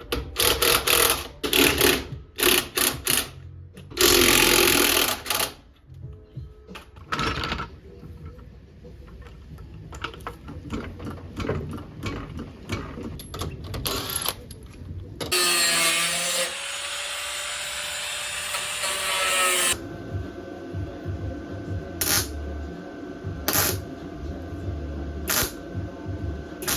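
Power tools at work on a car's rust-repair patch panels: irregular short bursts early on, a steady run of about four seconds about two-thirds of the way through, then sharp strikes at regular intervals of about a second and a half.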